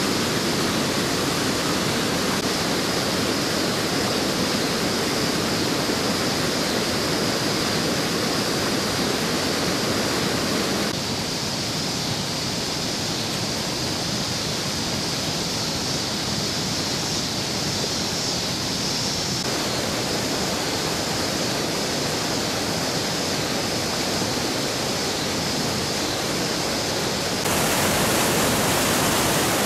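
Flooded creek water rushing over a road and around roadside posts: a steady, loud rushing noise. It changes tone a third of the way in and grows louder near the end over churning whitewater.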